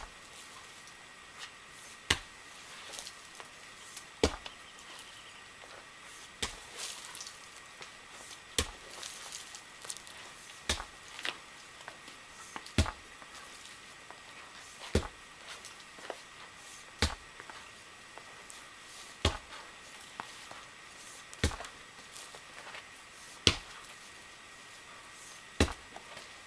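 Sledgehammer blows striking at a steady rhythm, one sharp impact about every two seconds, about a dozen in all.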